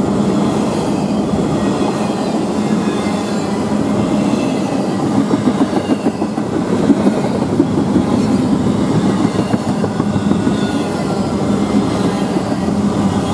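An intermodal freight train's container well cars rolling past close by: a steady rumble of steel wheels on rail with rapid clattering knocks and a faint high squeal.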